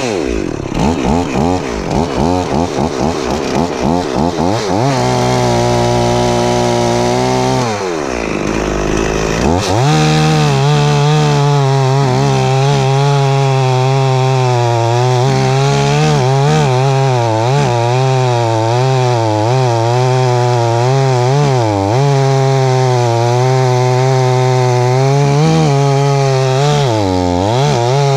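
Stihl 044 two-stroke chainsaw cutting into a fallen tree trunk. The throttle is blipped in quick bursts for the first few seconds, held steady, dips sharply about eight seconds in, then the saw runs at high revs with its pitch wavering under the load of the cut.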